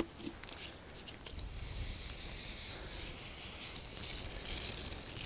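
Pump-up garden pressure sprayer spraying liquid through its wand nozzle, a fine hiss that starts about a second and a half in and grows louder near the end.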